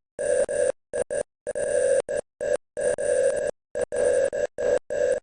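Morse code sent as a single steady beeping tone, keyed on and off in short dots and longer dashes with clean silent gaps between them.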